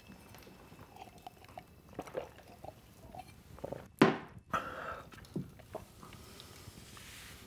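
A glass tumbler knocked down onto a wooden table with one sharp clack about four seconds in, with softer clicks and handling sounds before and after it.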